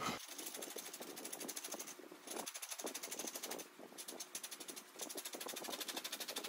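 Flat bench chisel cutting spinning wood on a treadle-driven spring pole lathe, smoothing away the ridges left by a roughing gouge: faint, rapid ticking in strokes about a second long, with short pauses between them as the treadle goes down and back up.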